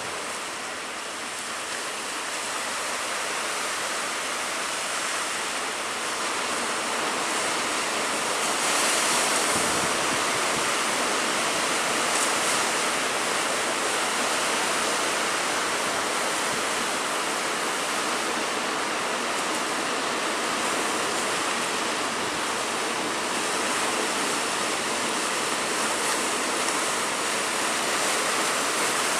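Big sea waves breaking and surf washing in, a continuous rush that swells louder about nine seconds in and again a few seconds later.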